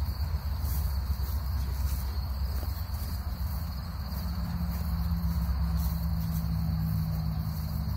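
Crickets trilling steadily, a single high even note that never breaks, over a louder low rumble.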